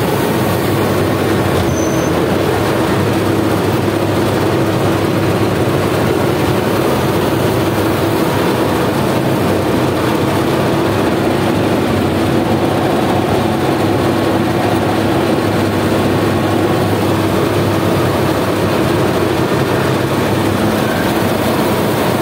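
Combine harvester running under load while cutting dry crop: a steady, unbroken drone of the engine and the turning reel, cutter bar and threshing machinery, heard from the operator's platform.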